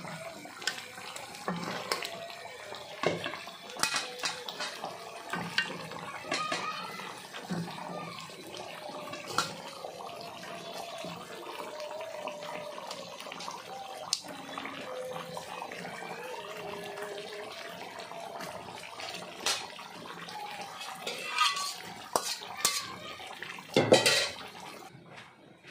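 A wooden spatula scrapes and knocks against a metal pot as a chicken curry is stirred, over the steady hiss of the simmering pan. The knocks come at irregular intervals, with a louder clatter near the end.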